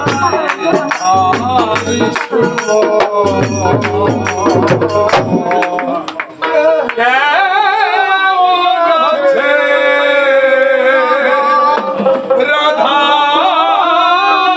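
Live Bengali song: a man singing over fast, rhythmic hand percussion and drum. About five or six seconds in, the percussion stops and the singing carries on in long, wavering held notes.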